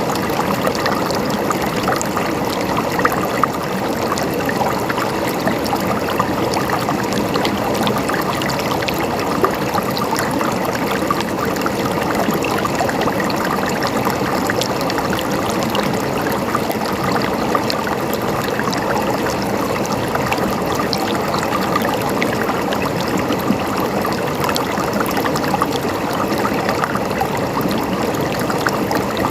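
River water flowing and splashing steadily, a dense even rush with many small splashes and trickles.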